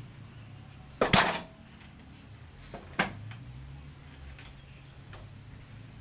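Heavy clanks of a coconut-palm log being rolled onto a sawmill's steel carriage bed: a loud metallic knock about a second in and a second one about three seconds in, with a few lighter clicks between. A low steady hum runs underneath.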